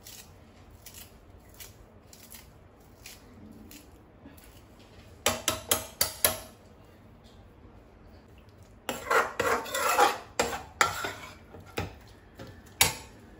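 Steel spatula working in a kadhai of thick curry: four sharp metal taps about five seconds in, then a busy run of scraping and clinking as it stirs, and one last sharp tap near the end.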